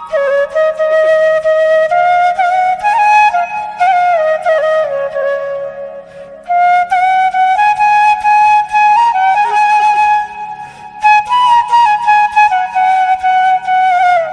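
Background music: a flute playing a stepwise melody over a light, steady percussion beat, with short pauses between phrases.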